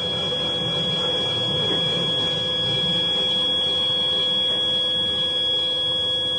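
Steady industrial machinery din: a high, constant whine over a low rumble.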